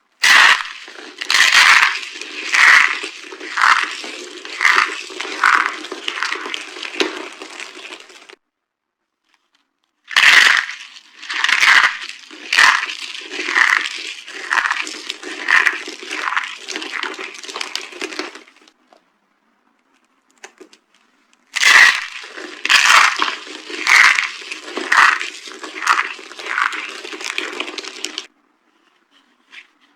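Dry soap being crushed: three bouts of crunching, each a run of sharp crunches about every half second over a steady crackle, fading toward its end, with short silences between the bouts.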